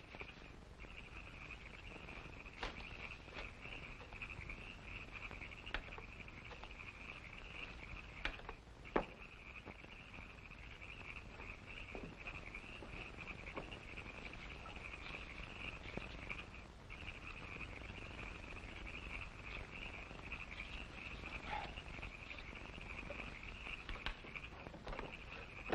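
Steady high chirring of a night-time chorus of small creatures, with a handful of faint clicks and snaps scattered through it, the sharpest about nine seconds in.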